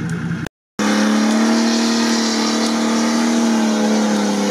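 Off-road truck climbing out of a creek bed on its winch: a steady, pitched mechanical drone that comes in after a brief gap about half a second in and dips slightly in pitch midway.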